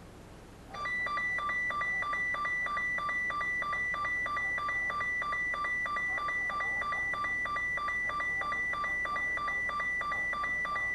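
NOAA weather radio receiver's alert alarm for a test: beeping that flips rapidly between a high and a lower tone, starting just under a second in and going on steadily for about ten seconds.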